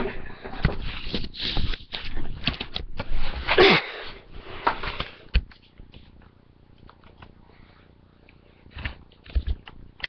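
Handling noise from a camera being picked up and moved: a run of rustles and bumps over the first five seconds or so, then faint room sound with a few soft knocks near the end.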